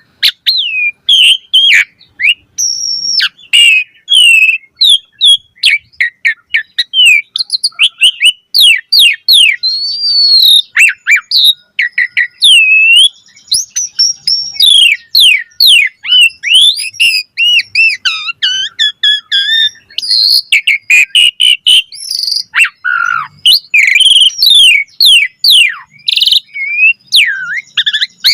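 Asian pied starling (jalak suren) singing a fast, varied song of sliding whistles, chirps and trills with hardly a pause.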